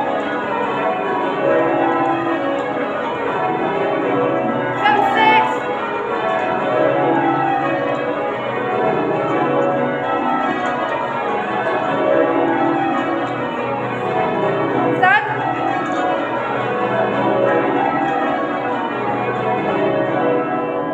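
The ring of twelve church bells at St Mary Redcliffe being change-rung: a continuous, even stream of overlapping bell strokes, the bells sounding one after another in changing order.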